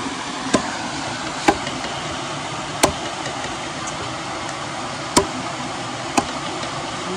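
Raw chicken being chopped with a curved knife on a wooden log chopping block: five sharp chops at uneven intervals.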